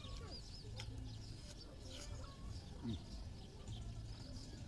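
Chickens clucking, with one louder cluck about three seconds in, over small birds chirping high and a few faint clicks from eating by hand.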